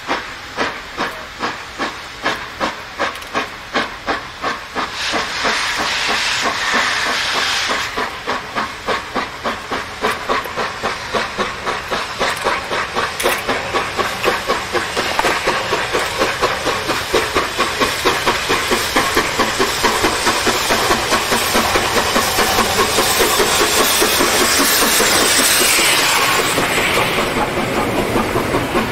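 ČSD class 464.2 4-8-4T steam tank locomotive 464.202 working a train away from a stand. Its exhaust beats quicken steadily from about two a second to about four a second. Steam hisses loudly around six to eight seconds in and again near the end as the engine passes close by.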